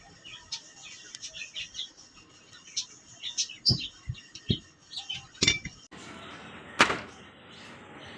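Small birds chirping over and over, with a few low knocks around the middle. Then the background changes abruptly and a meat cleaver gives one loud, sharp chop into a cabbage on a wooden cutting board, a little before the end.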